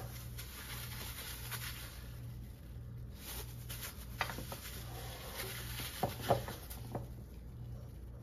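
Quiet handling sounds of plastic-gloved hands working sticky whole wheat bread dough and sprinkling flour in a glass bowl, with a few light taps about four and six seconds in, over a steady low hum.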